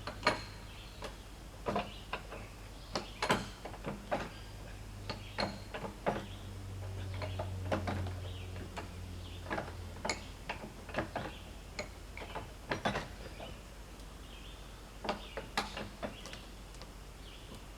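Irregular knocks and clanks of a log and metal dogs being shifted by hand on a sawmill carriage, with the sawmill engine off. A low hum runs underneath and swells about eight seconds in.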